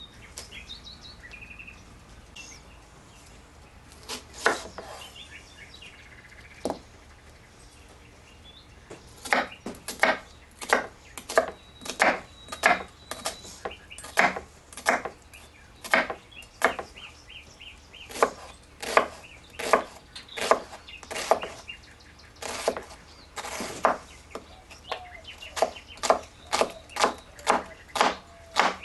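Chef's knife chopping an onion on a wooden cutting board: a few separate knocks, then a steady run of chops from about nine seconds in, roughly three every two seconds.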